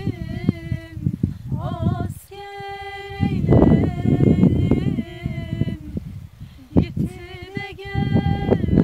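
A voice singing held notes, with gusts of wind buffeting the microphone.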